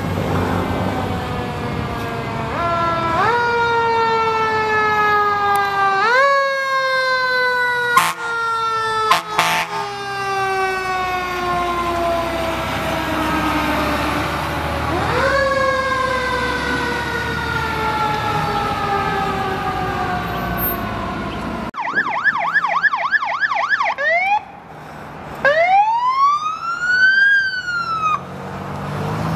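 Fire engine siren sounding on a passing engine: it winds up, slowly coasts down in pitch, and is revved up again several times, with a few brief sharp blasts partway through. After a cut, a second emergency vehicle's siren gives a fast yelp, then a single wail that rises and falls.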